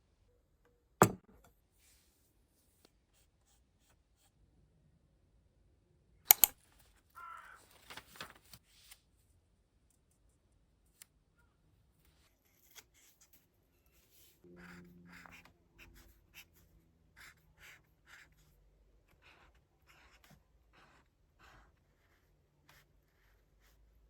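Small handling sounds: a sharp click about a second in, a louder double click about six seconds in followed by rustling, then a run of short scratchy strokes, about two a second, through the last ten seconds.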